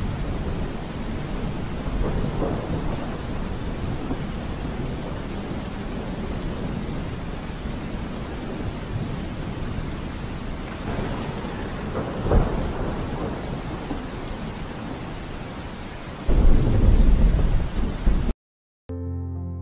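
Steady rain with low rolls of thunder, the longest and loudest near the end. The rain cuts off suddenly, and after a brief silence piano music begins.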